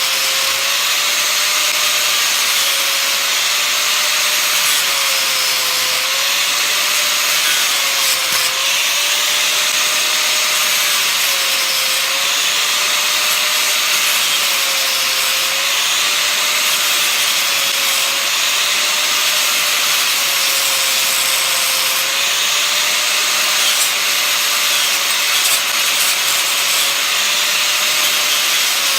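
Hitachi 4.5-inch angle grinder with a cutting wheel running continuously as it cuts through the copper windings of a ceiling fan motor. Its whine dips in pitch every few seconds as the wheel bites in under load, over a steady grinding hiss.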